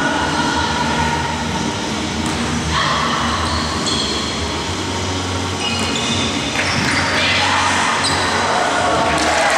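Volleyball rally in a large echoing sports hall: the ball being struck, with several drawn-out high squeaks over it.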